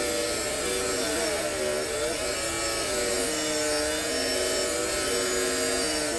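A shop power tool running steadily on metal, a dense whirring noise, with several sustained tones that shift up and down in pitch over it.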